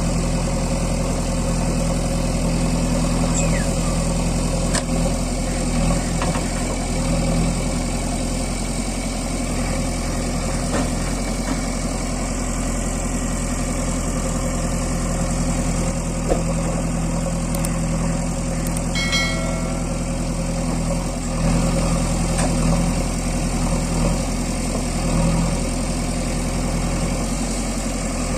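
JCB 3DX Super backhoe loader's diesel engine running steadily at a low, even speed.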